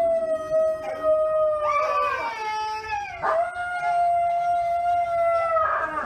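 A husky-type dog howling: two long, steady howls, the first fading out about two seconds in and the second starting about a second later and holding until near the end.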